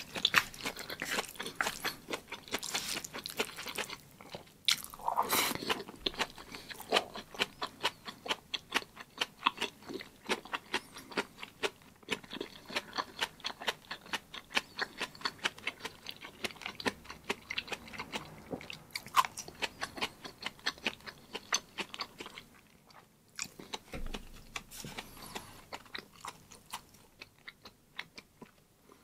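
Close-miked mouth sounds of chewing a mouthful of jajangmyeon (black bean sauce noodles): a fast, regular run of wet smacking clicks, thinning out and getting quieter over the last several seconds.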